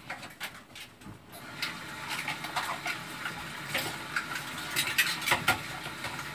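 Dishes being washed by hand in a kitchen sink: plates and cutlery clatter and clink, with water running steadily from about a second in.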